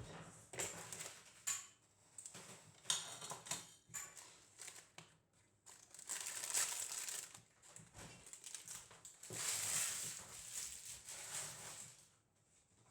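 Irregular rustling and crinkling with scattered light knocks, as of things being handled at close range.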